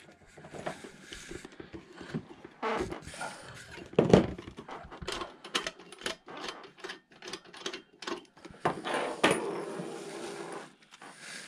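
Clicks, knocks and rattles of coaxial cable connectors and a handheld radio being handled as the connectors are changed, with one louder knock about four seconds in.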